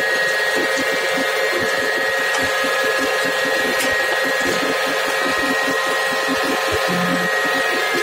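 Sawdust grinding machine running steadily: a constant motor whine with several steady tones over a dense, fast rattling churn.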